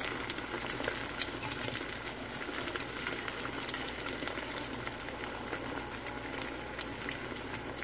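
Beaten-egg omelette mixture frying in hot oil in a pan over medium heat: a steady sizzle with many small crackles.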